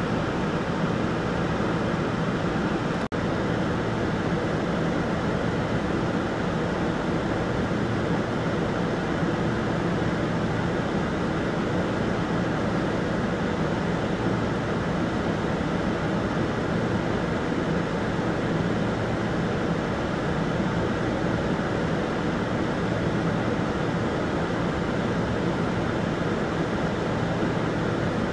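Steady, even drone of a Kombi minibus engine idling, heard from inside the closed cabin. It briefly cuts out about three seconds in.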